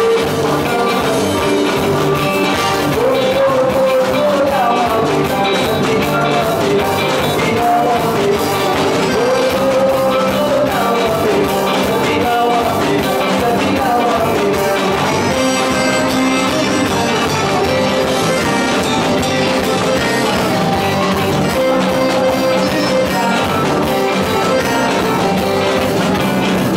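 Live chutney music from a band with keyboard and bass guitar over a steady beat, with a male singer singing lead into a microphone through the PA.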